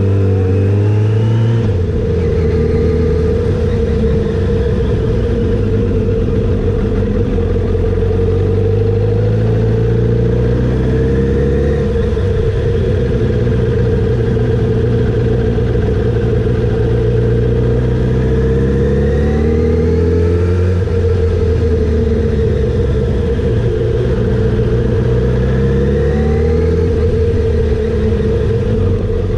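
Kawasaki ZX-7R's 750cc inline-four engine running at low to mid revs, heard from the bike itself, its pitch rising and falling several times as the throttle is opened and eased.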